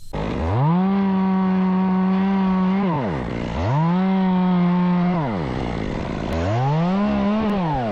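Two-stroke chainsaw throttled up to full speed three times, each time climbing quickly to a steady high whine and dropping back toward idle. The first two revs are held for a couple of seconds; the third is shorter, peaking and falling away near the end.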